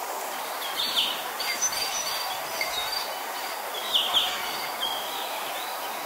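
Steady rushing of a small forest waterfall and wind, with birds chirping over it: several short calls, the loudest about one second in and again near four seconds.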